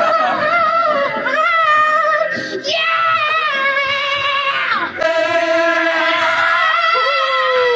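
Loud singing: three long held high notes with a wavering vibrato, each breaking into the next about 2.7 and 5 seconds in, with a second voice sliding down in pitch near the end.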